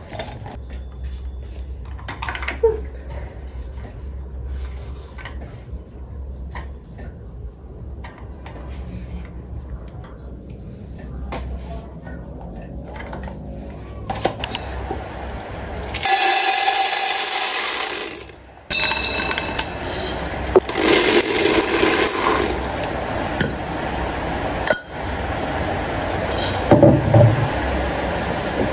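Small clicks and rustling of plastic wrapping as battery puck lights are handled, then a loud rushing noise of about two seconds that cuts off suddenly, followed by knocks and clinks.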